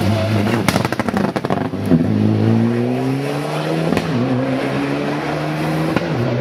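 Mitsubishi Lancer Evolution rally car's turbocharged four-cylinder engine at full throttle. A burst of crackling pops comes about a second in, then the engine revs up as the car accelerates away, its pitch rising through the gears with shifts at about four and six seconds.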